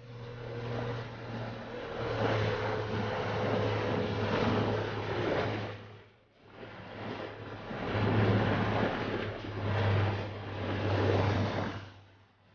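Small boat's outboard motor running steadily under way, with the rush of wind and choppy water over it. The sound dips briefly about six seconds in and again near the end.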